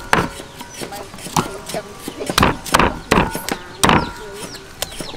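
Cleaver chopping raw chicken on a wooden chopping block: sharp chops at an uneven pace, about one a second, each with a brief metallic ring from the blade.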